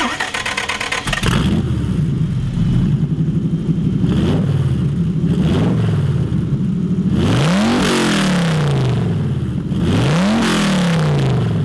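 Millyard Viper V10 motorcycle's 8-litre Dodge Viper V10 engine idling through its modified Suzuki TL1000R silencers. It is blipped lightly a couple of times, then revved hard twice, each rev climbing quickly and falling back to idle.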